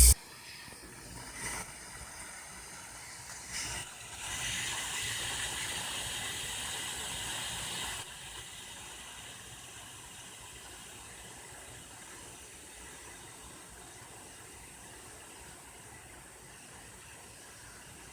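Steam hissing out of an electric pressure cooker's release valve as it depressurises after cooking. It is louder for a few seconds, cuts off suddenly, and then a fainter hiss slowly dies away. Two light knocks come early on.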